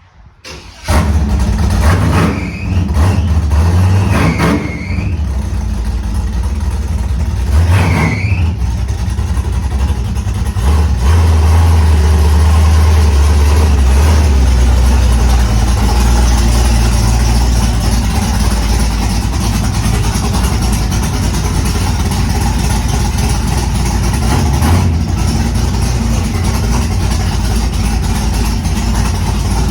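A car engine starts up under a second in and is revved in three quick blips over the next several seconds. It then settles into a loud, steady idle with a deep exhaust rumble.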